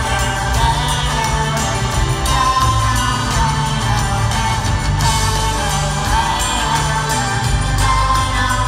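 Live band music with singing, played over an arena's PA and heard from high in the stands. Bass notes change beneath held higher tones, steady throughout.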